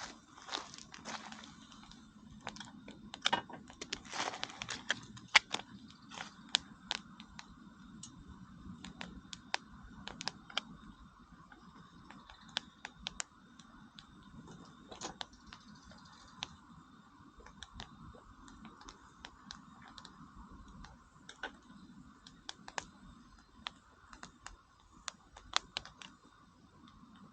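Wood campfire crackling: irregular sharp pops and snaps, busiest in the first ten seconds or so and sparser after.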